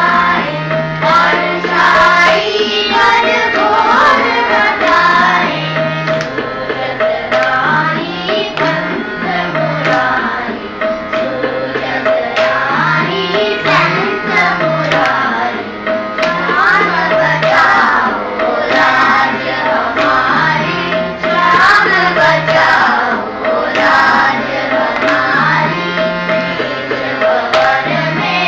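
A group of children singing a chota khyal in raag Bhupali in unison, accompanied by tabla playing the teentaal rhythm cycle under a steady drone.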